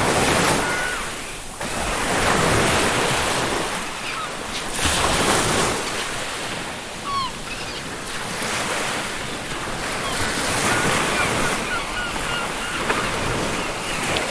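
Ocean surf breaking and washing up a beach in repeated swells every few seconds, with seagulls giving short calls in the background several times.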